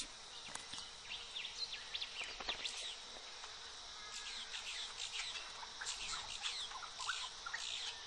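Faint bush ambience: a steady high insect drone with many short bird chirps scattered throughout.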